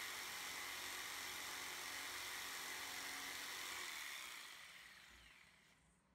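Corded jigsaw cutting a curve into the end of a 2x4, running steadily for about four seconds, then fading away to silence near the end.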